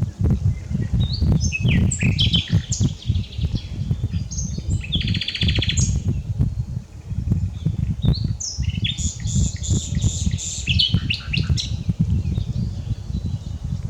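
A common nightingale singing two song phrases, a few seconds apart. The phrases are made of varied whistles, chirps and sharp notes, with a fast rattling trill about five seconds in. A steady low rumble lies underneath.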